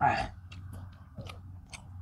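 Close chewing and smacking of people eating, with many short wet mouth clicks and a short louder sound right at the start.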